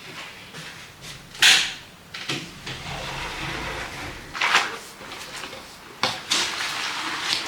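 A series of knocks and scrapes of household objects being handled, the loudest about a second and a half in.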